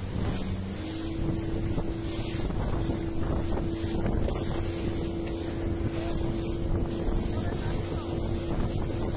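Small motorboat's engine running under way, its steady note stepping up in pitch about a second in, with wind buffeting the microphone and water rushing past the hull.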